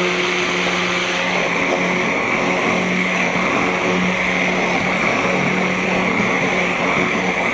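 Immersion (stick) blender running steadily down in a jar of mayonnaise, a constant motor hum with a churning whir, as broken mayonnaise is blended back into an emulsion.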